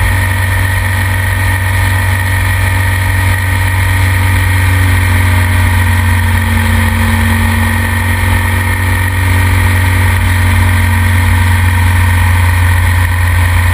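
BMW R1200GS motorcycle on the move: its flat-twin boxer engine running steadily at road speed, mixed with wind and road noise.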